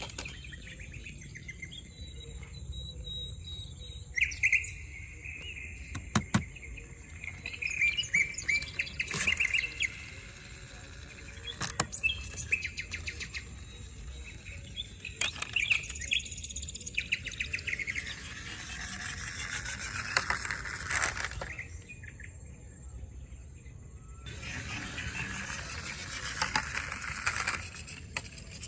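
Birds chirping in quick repeated runs, with a few sharp knocks and, later, stretches of scraping noise.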